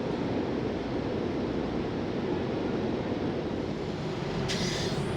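Steady low rumble of a truck-stop fuel island, with a short hiss about four and a half seconds in.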